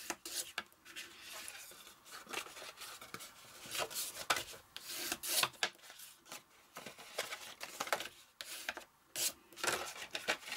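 A bone folder rubbed firmly along the scored folds of a cardstock card blank in repeated scraping strokes, with the stiff card rustling as it is folded and handled.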